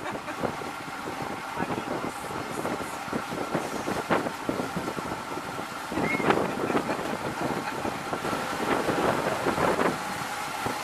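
A small tour boat's motor running steadily underway, with wind buffeting the microphone. It gets a little louder about six seconds in.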